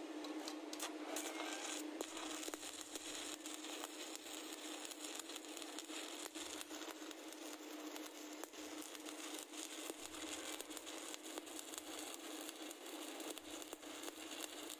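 Stick-welding (SMAW) arc crackling and sizzling steadily as a rod burns into a 10-inch pipe flange joint, with a steady hum underneath.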